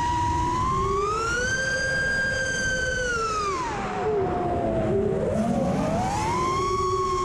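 Brushless motors of a 5S FPV racing quad whining over wind rush, recorded by its onboard camera. The pitch rises about a second in, drops sharply around the middle as the throttle comes off, then climbs again near the end.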